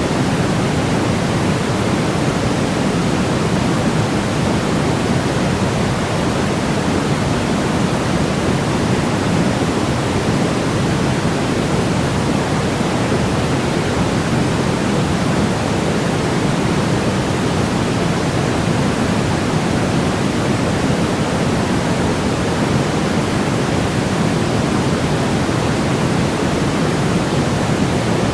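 Steady synthetic sleep-aid noise, an even, unchanging hiss with more weight in the low-middle range than in the treble, closer to pink noise than to flat white noise.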